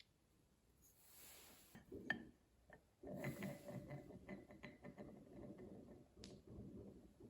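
Marbles rolling and clacking down a wooden marble run track. After a quiet start with a single click, a low rolling rumble begins about three seconds in, scattered with sharp clicks of marbles striking the wood and each other.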